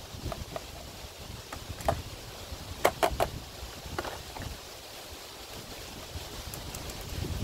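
Small plastic clicks and ticks from a small screwdriver working at the plastic battery cover of an RC car transmitter, the loudest a quick run of three clicks about three seconds in. Low wind rumble on the microphone runs underneath.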